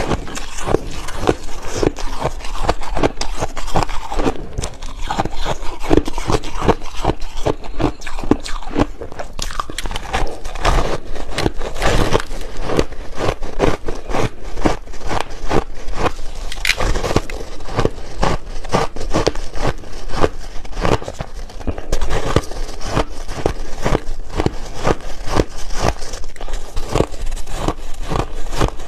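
Soft crushed ice being bitten and chewed in big bites: a loud, dense crunching, many crunches a second, that goes on without a break.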